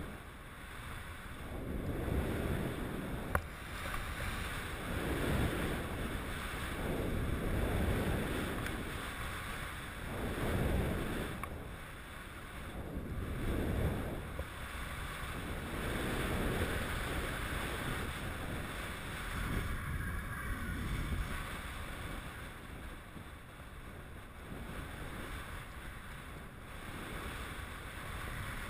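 Skis hissing through powder snow, with wind rushing over the microphone; the rush swells and fades every two to three seconds.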